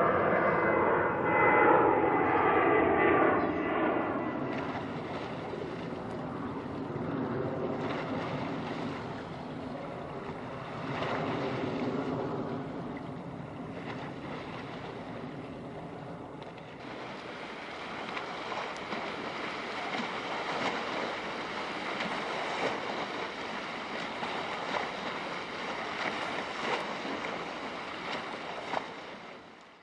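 Engine drone that falls in pitch and fades away over the first four seconds, then a steady rush of wind and water.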